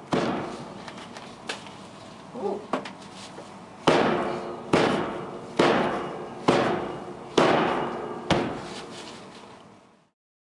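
A series of sharp hits, each ringing out briefly: one near the start, a few faint ones, then six strong ones evenly spaced a little under a second apart, before the sound cuts off.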